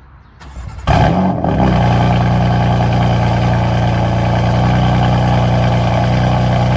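A BMW X3 28i's 2.0-litre turbocharged four-cylinder engine starting up. It cranks briefly, catches with a loud flare about a second in, then settles quickly into a steady idle.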